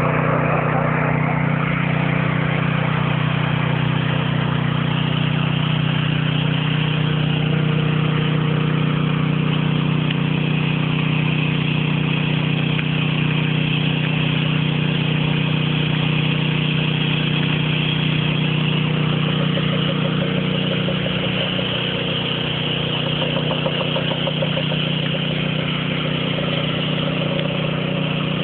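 An engine running steadily at a constant speed, with an even hum that hardly changes.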